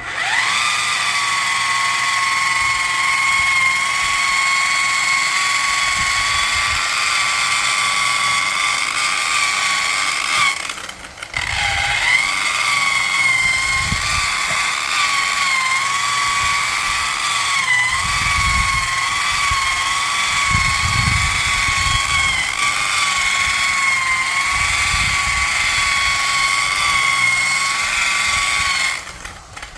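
Electric car polisher with a foam pad running at its low speed setting 2, buffing polish into a plastic fog light lens: a steady high whine whose pitch dips slightly now and then as the pad is pressed. It stops for a moment about 11 seconds in, starts again, and cuts off near the end.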